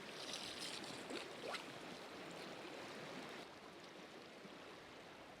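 Faint river water flowing, a steady soft hiss with a few light clicks in the first second and a half.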